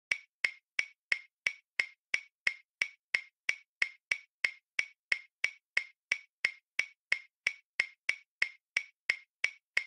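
Steady, evenly spaced ticking, about three short sharp clicks a second, each one alike, with silence between them.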